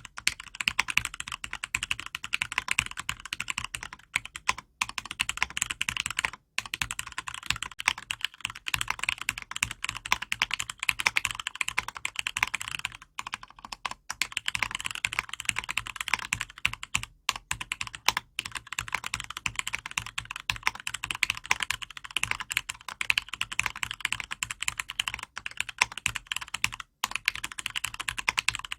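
Fast continuous typing on a mechanical keyboard with lubed and filmed Cherry MX Red linear switches in an acrylic case: a dense stream of keystrokes with the odd brief pause.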